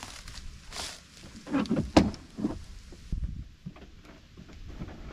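Rustling and scraping in dry leaves with a few knocks, the loudest about two seconds in, as gear is dragged and set down.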